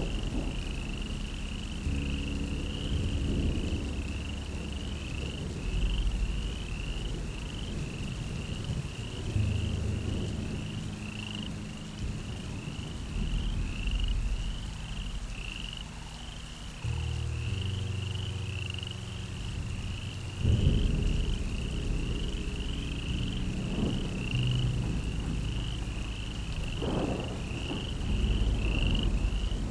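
Repeated short, high chirps of a calling animal, a little under two a second, keeping on without a break, over a low drone that shifts in pitch every few seconds.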